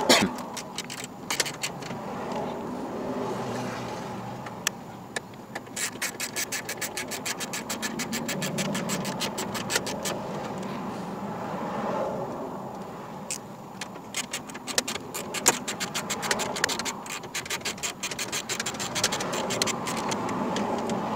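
Quick runs of sharp clicks, several a second, with some scraping, as screws are turned by hand with a small screwdriver into the plastic dash trim around the heater and A/C control panel.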